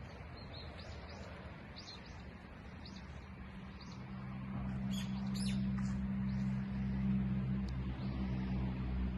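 Small birds chirping in short, high, repeated notes. From about halfway through, a low, steady engine-like hum swells up and becomes the loudest sound.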